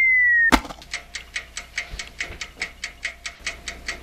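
A steady electronic tone slowly falling in pitch, cut off about half a second in by a sharp hit. Then a clock ticks fast and evenly, about five ticks a second, laid on as a sound effect.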